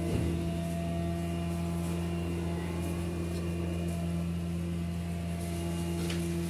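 Steady electrical hum made of several fixed low tones, with a brief rustle at the start and a few faint clicks near the end.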